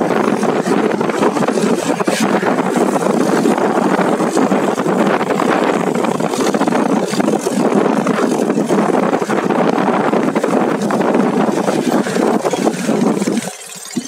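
Steady rushing wind on the microphone mixed with motorcycle engine and road noise during a ride. It drops off abruptly near the end.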